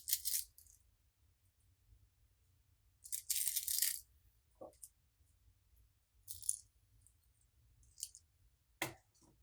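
Small hard pieces, such as beads, rattling and scattering into a container in several short, bright bursts, with a few sharp clicks between them.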